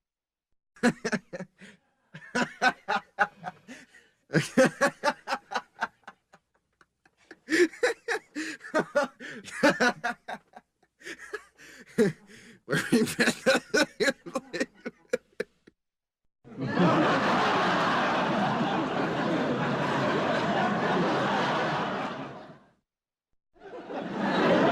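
A person laughing in quick, choppy pulses, in several fits broken by short pauses. About sixteen seconds in, this gives way to many voices laughing together for about six seconds, and another burst of group laughter starts near the end.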